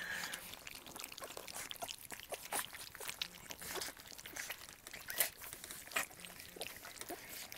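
Several bullmastiff puppies lapping and smacking at wet puppy mush in a pan: irregular soft wet clicks and slurps, with a few louder smacks. The puppies are being weaned onto their first solid food.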